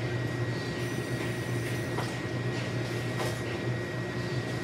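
A steady low hum with a faint high whine runs throughout. Over it come a few soft, faint clicks and squishes from raw chicken being mixed by gloved hands in a bowl.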